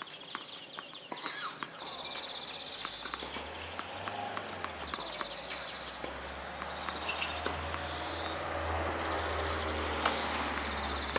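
Outdoor tennis court between points: scattered short knocks of tennis balls and footsteps on the hard court, over a high buzzing trill that comes and goes. A low rumble sets in about three seconds in and continues.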